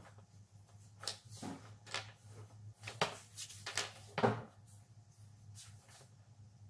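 Crayon scratching and tapping on paper laid on a wooden table: a handful of short, scratchy strokes at irregular intervals, mostly in the first two thirds, over a low steady hum.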